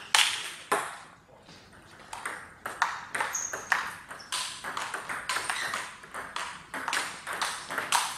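Table tennis rally: the ball clicking sharply back and forth off the rackets and the table, several hits a second, with a brief lull about a second in.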